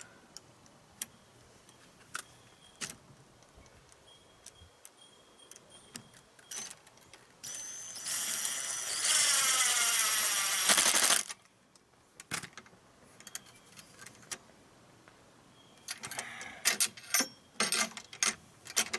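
Power drill driving a screw to mount a gate latch onto a wooden 2x4, running for about three and a half seconds in the middle and getting louder partway through, then stopping suddenly. Light clicks and metal rattles of the latch hardware come before it and in a quick cluster near the end.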